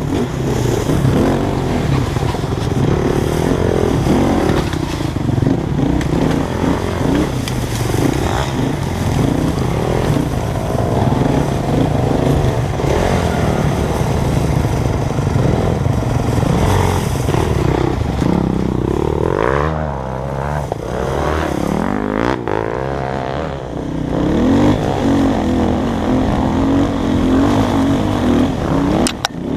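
Dirt bike engine running hard, its pitch rising and falling with the throttle, with a couple of brief drops in revs about two-thirds of the way through.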